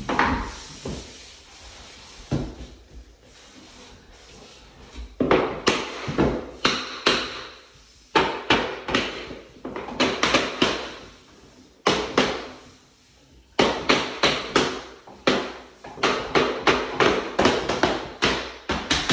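Tapping blocks knocked against the edge of a row of laminate floor planks, driving the locking joints home with light taps. The knocks come in quick runs of several a second with short pauses between, thickening toward the end.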